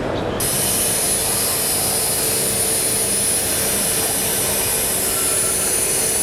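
End mill held in an Albrecht APC milling chuck side-milling AISI 1045 steel: a steady cutting noise with an even high whine, starting abruptly about half a second in.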